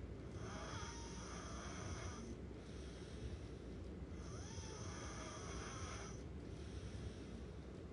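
A person snoring in a slow, even rhythm: two drawn-out snores about four seconds apart, each lasting about two seconds.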